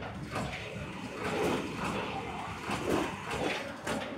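Factory-floor noise from PCB assembly line machinery running, rising and falling unevenly with no steady rhythm.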